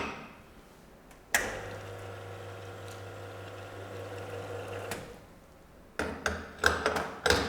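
Sanremo commercial espresso machine flushing clear water through the group head: the pump starts suddenly about a second and a half in, runs with a steady hum for about three and a half seconds, then stops. A few sharp knocks and clicks follow near the end.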